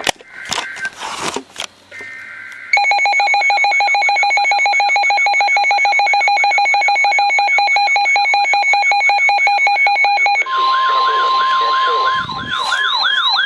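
NOAA Weather Radio warning alert. It opens with short raspy bursts of SAME digital header tones. From about three seconds in, a weather radio receiver sounds a loud, rapidly pulsing electronic alarm. From about ten seconds in, the steady 1050 Hz warning tone plays with a second receiver's repeated swooping siren chirps over it.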